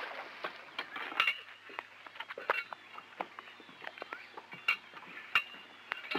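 Irregular knocks and light clinks of boating gear being handled and set down: a cooler, a jug and rope going into a small boat, about a dozen separate hits.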